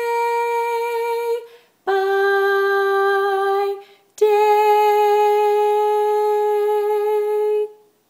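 A woman singing unaccompanied: three long held notes, the second lower than the first and the third a little higher and longest, the closing notes of the song.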